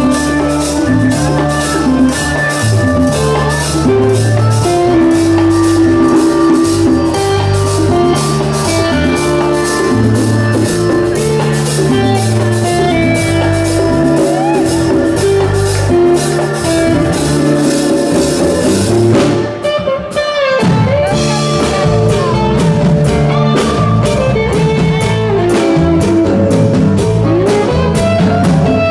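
Live classic rock band playing a song with guitar and drums, the drums dropping out for a short break about two-thirds of the way through before the full band comes back in.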